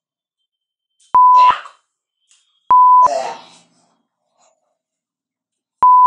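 Censor bleeps: three beeps of one steady tone, the first two short and the third longer, each ending in a brief scrap of a man's voice, with dead silence between.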